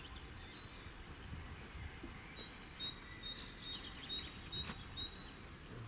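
Small bird calling: a string of short, high chirps, about two a second, over faint outdoor background noise.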